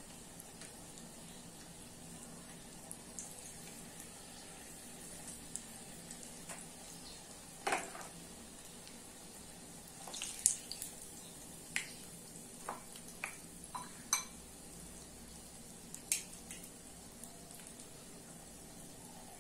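Hot oil sizzling steadily in a small saucepan as apple and cinnamon fritters deep-fry, with several sharp clinks of metal spoons against the pan and bowl, the loudest about ten seconds in.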